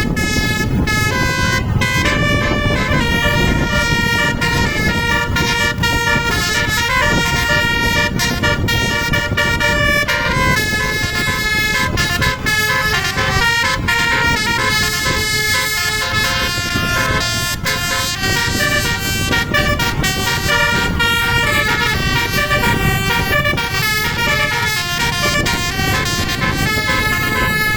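Indonesian basuri multi-tone bus air horn playing a melody of quick stepped tones, repeated phrases throughout, over a steady low rumble.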